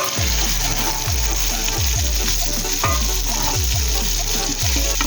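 Food sizzling as it fries in a pan while being stirred.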